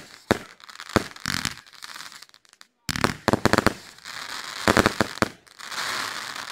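Aerial firework shells bursting in quick succession: sharp bangs, several a second, each followed by crackling. Near the end comes a longer stretch of dense crackling from glittering crackle stars.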